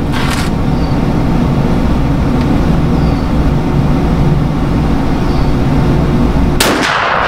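A motor vehicle's engine running steadily nearby, with a low, even hum. Near the end comes a sudden burst of noise that trails off over about half a second.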